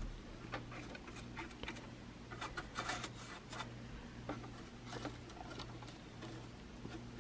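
Faint scratching and light ticking of a small bristle brush scrubbing lint out of a sewing machine's metal bobbin area and feed dogs, in irregular strokes that are busiest about three seconds in.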